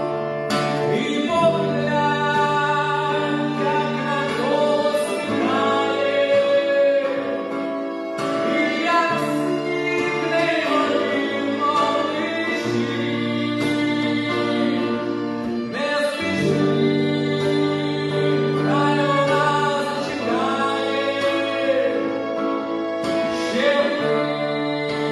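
A song: a sung melody over instrumental accompaniment, with held bass notes that change every few seconds.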